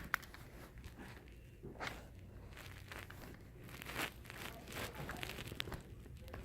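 Faint rustling and scattered light clicks, like small objects being handled.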